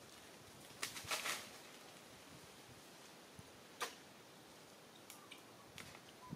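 Quiet background broken by faint, short clicks and rustles: a brief cluster of rustling about a second in, a single sharp click just before four seconds, and a few small ticks near the end.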